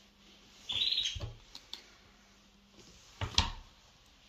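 Clothes being handled and shifted, with a soft thump a little past three seconds. About a second in there is a short high chirp or squeak.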